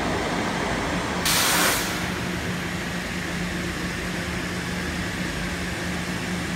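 TSMP-9570 thermoforming machine running with a steady hum. About a second in there is a hiss that lasts about half a second.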